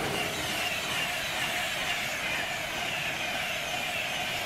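Electric express train hauled by a Class 91 locomotive passing at speed: its coaches rush by close with a steady noise of wheels on rail and air, and faint whines fall slowly in pitch as the train goes by.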